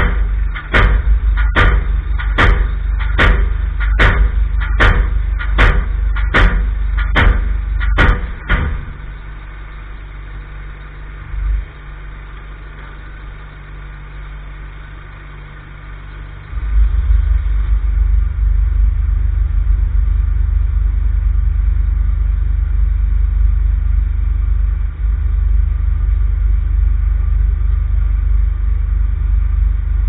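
Pile-driving hammer striking the top of a timber piling in a steady rhythm, about one blow every 0.8 seconds, stopping about eight and a half seconds in. An engine runs underneath throughout and grows louder again about sixteen seconds in.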